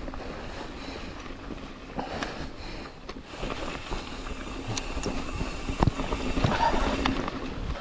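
Ibis Ripley V4 mountain bike rolling along a trail: steady tyre noise and wind on the microphone, with sharp knocks and rattles from the bike over bumps, busier in the second half.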